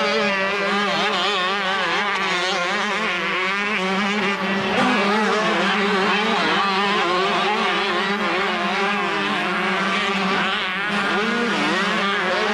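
Several 125cc two-stroke motocross bikes racing together, their engines revving up and down over one another.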